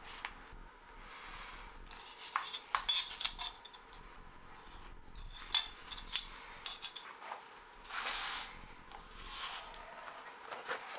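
A knife drawn through vegetable-tanned leather along a steel ruler, with scraping swells, and sharp clicks and knocks as the ruler and tools are handled and set down on a wooden bench.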